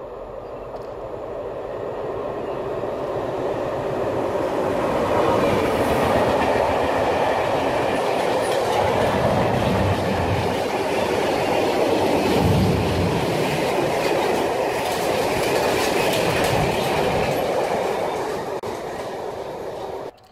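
A freight train approaching and passing close by: the rumble of its wagons' wheels on the rails grows over the first few seconds and stays loud as the covered wagons roll past, with heavier low rumbles about ten and twelve seconds in. It cuts off suddenly at the end.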